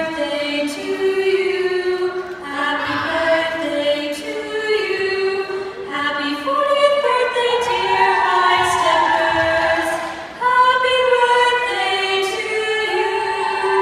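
Choral a cappella singing of the routine's music, several female voices holding slow chords with no beat, with a brief break about ten seconds in.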